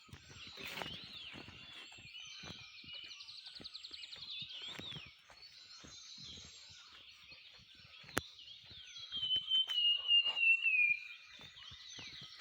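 Several wild birds calling and singing together, with a fast trill a few seconds in and a louder falling run of notes near the end. A single sharp click about eight seconds in, and faint low knocks throughout.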